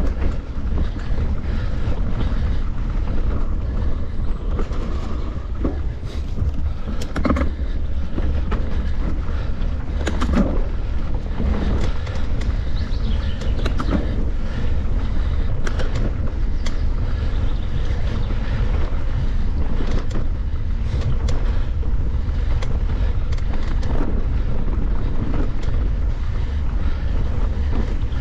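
Wind buffeting the microphone over a steady low rumble while a mountain bike rides a trail, with scattered clicks and rattles throughout.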